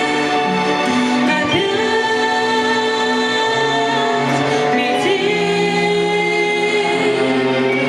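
A song with singing over sustained, slowly changing chords.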